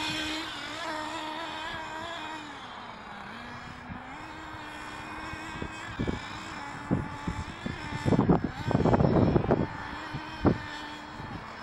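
An Alpha Dragon nitro RC buggy's small two-stroke glow engine runs at steady part throttle during break-in. Its pitch sags briefly about two seconds in, then picks back up. Several short, loud knocks come in a cluster from the middle to near the end.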